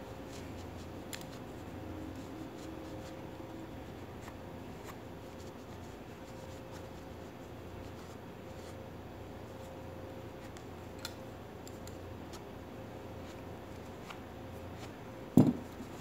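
Small scattered clicks and rubbing from handling a Leatherman Micra keychain multitool, over a faint steady hum, with one loud knock near the end.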